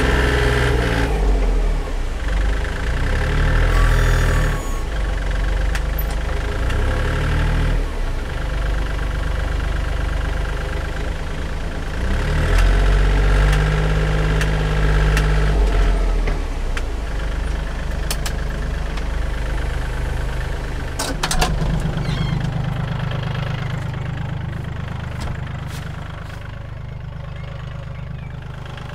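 Compact tractor's engine running and revving in surges as its front loader digs into a soil pile. It has a couple of sharp knocks about two-thirds through, then settles to a steadier, quieter run near the end.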